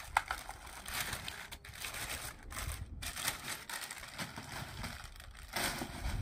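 A clear plastic bag crinkling and rustling on and off as an angle grinder is unwrapped from it.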